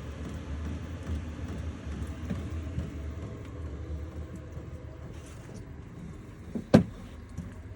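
Vevor diesel heater running with a steady low hum from its fan and burner, easing off in the later seconds as it throttles down after being set to level 1. One sharp knock near the end.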